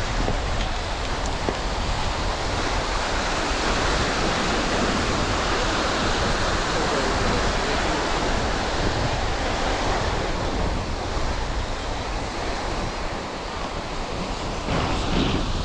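Sea surf washing steadily onto a beach, with wind on the microphone.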